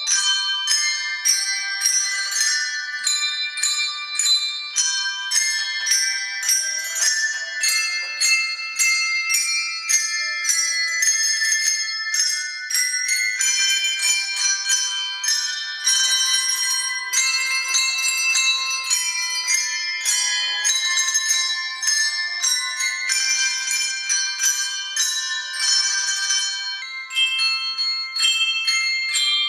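Handbell ensemble playing a tune: many hand-rung bells struck in quick, steady succession, their clear tones ringing on and overlapping.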